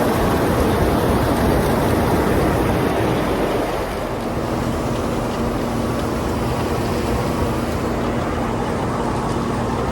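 Combine harvester running in the field, with wind noise on the microphone. About four seconds in the noise eases slightly and a steady low hum comes through.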